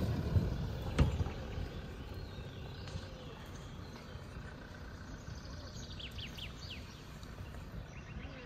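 Pickup truck towing a small off-road camper trailer driving away over grass and sand, its engine and tyre noise fading as it pulls off, with a sharp knock about a second in. A few bird chirps around six seconds in.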